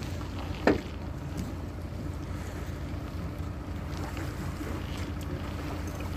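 Vehicle engine idling steadily, with wind rumbling on the microphone; a single sharp knock sounds just under a second in.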